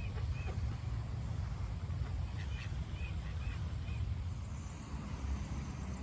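A bird calling in short, arched notes, two at the start and four more in a quick run a few seconds in, over a steady low wind rumble on the microphone.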